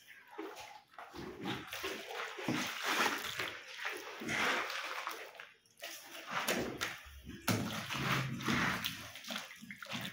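Wet plaster of Paris slurry with sisal fibre being spread and patted by a gloved hand in a mould: irregular wet sloshing and slapping strokes with short pauses.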